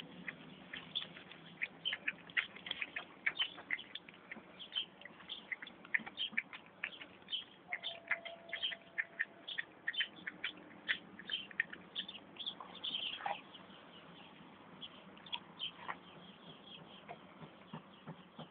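An American Staffordshire Terrier puppy making a rapid run of short, high squeaks and clicks, with one brief steady whine about eight seconds in; the sounds thin out in the last few seconds.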